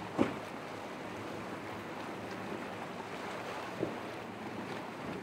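Surf and waves with wind on the microphone, and the twin Mercury outboards of a Renegade 32 center-console faintly running under it. Two short thumps stand out, one just after the start and one a little under four seconds in.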